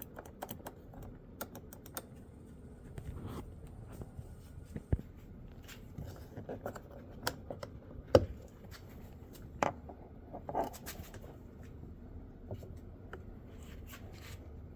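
Irregular plastic clicks of a 2012 Kia Sportage's power window switch being pressed and released again and again, with no window motor running: the switch is not working, which the owner puts down to burnt contacts inside it.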